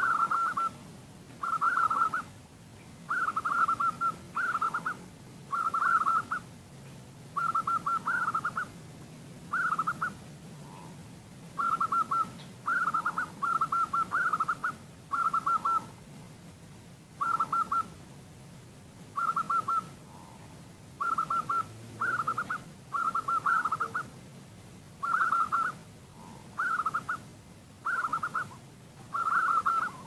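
Female zebra dove (perkutut) calling: short trilling coos, each about half a second long, repeated every second or two. This is a hen's call to a male, used as a lure to set caged males singing.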